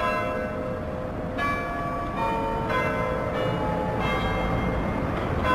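Church bells ringing, struck one after another at different pitches about every half to one second, each note ringing on briefly, over a low rumble of street noise.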